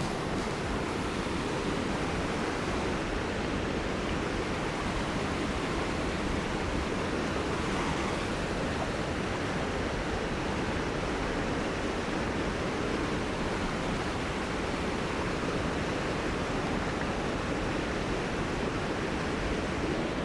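Steady rush of river water pouring through a whitewater chute over rock ledges.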